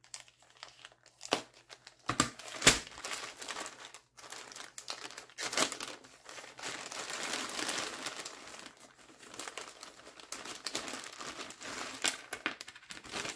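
Plastic bags crinkling and rustling as hands open a large clear bag and handle the small zip-top bead bags inside, with irregular sharp crackles, the loudest a little under three seconds in.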